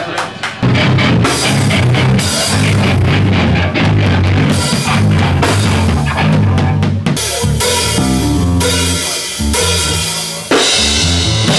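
Rock band playing live: drum kit with bass drum and cymbals, electric guitar and bass guitar. A few sharp clicks open it, the full band comes in about half a second in, and the second half turns stop-start, with a loud full-band hit near the end.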